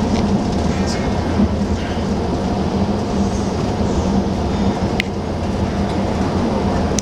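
Tour coach running along the highway, heard from inside the cabin: a steady low engine drone mixed with road noise. There is a single sharp click about five seconds in.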